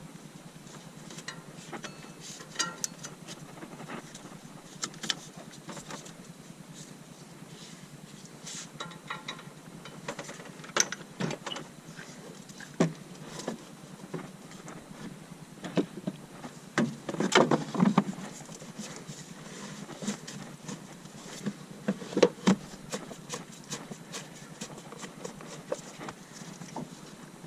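Irregular clicks, knocks and clinks of hand tools and metal parts being handled during work on a truck's power steering pump, with a cluster of louder knocks a little past the middle.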